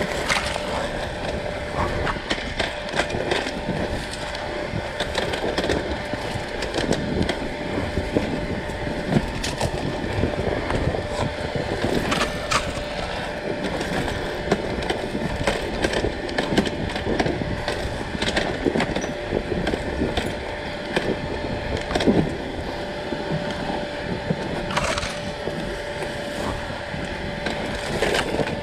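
Enduro dirt bike engine running while the bike is ridden over rough off-road ground, with frequent knocks and rattles from the bike and rider jolting over the terrain.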